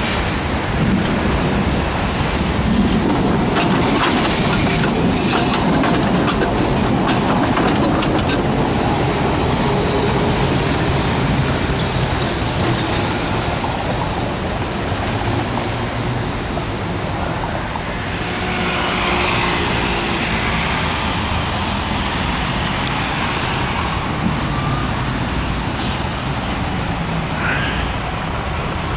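Milan streetcar running along its track, steel wheels clicking over rail joints and points for several seconds, with road traffic rumbling around it.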